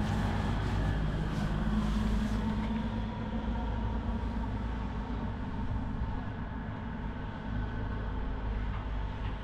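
Steady low engine hum from a motor running nearby, with a hiss that fades out about three seconds in.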